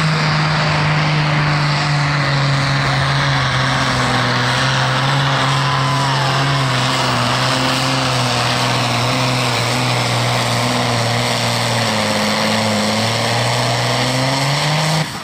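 International tractor's diesel engine running flat out while it drags a weight-transfer pulling sled, one steady loud note that sags a little in pitch as the load builds. About a second before the end the engine sound drops away sharply as the pull ends.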